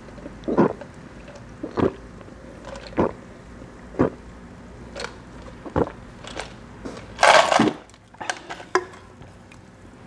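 A person gulping down iced Mountain Dew in one go, loud swallows about once a second. About seven seconds in comes a louder breathy burst, followed by a few light clicks.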